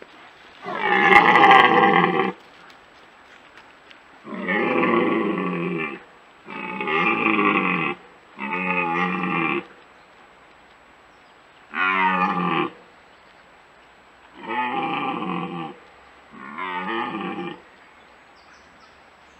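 Young red deer stag roaring in the rut: seven deep, drawn-out roars of one to two seconds each, the first the loudest. He roars to warn rival stags away from his hinds.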